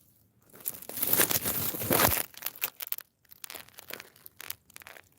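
Loud rustling and crumpling, strongest in the first two seconds, then broken into short scattered rustles.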